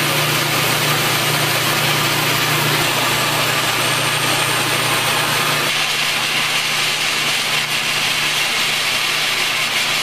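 Williames ST1500 rotary drum seeding line running steadily, a constant machine hum under an even hiss as trays move through the seeder. The sound shifts slightly about six seconds in.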